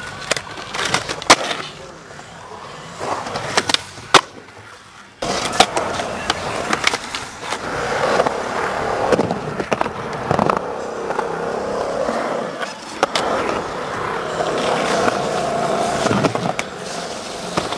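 Skateboard wheels rolling over a concrete bowl, with several sharp clacks of the board striking the concrete in the first few seconds. About five seconds in the rolling abruptly gets louder and then runs steady, with a few more clacks.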